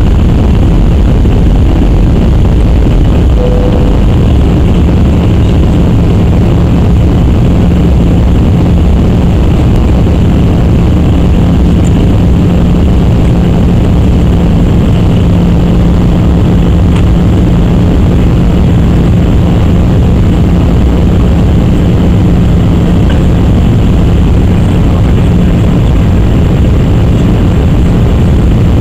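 Airbus A319-100 cabin noise in flight: a steady roar of jet engines and airflow heard from inside the cabin, with a steady low hum that fades out near the end.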